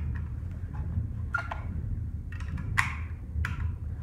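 A few sharp metallic clicks and clatters from hands handling shooting gear on a workbench, spaced roughly a second apart, over a steady low hum.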